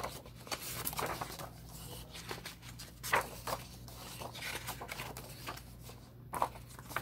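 Paper and card being handled: intermittent rustling and light taps, with a couple of sharper ones about three seconds in.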